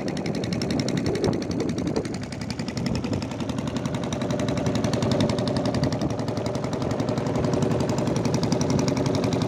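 Small boat's engine running steadily with a fast, even pulsing beat as it drives the wooden boat across the water.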